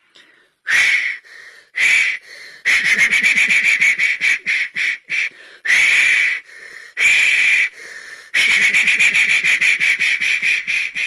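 Steam locomotive's wheels slipping on icy rails: bursts of fast, uneven exhaust chuffs and hissing steam. They stop and start again several times.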